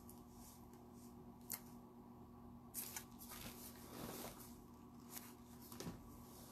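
Quiet room tone with a steady low hum, broken by a few faint, scattered clicks and a soft rustle of small objects being handled on a table.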